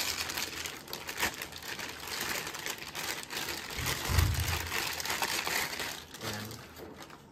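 Clear plastic wrapping crinkling and rustling as it is pulled off a laptop power adapter and cord. A dull low thump comes about four seconds in.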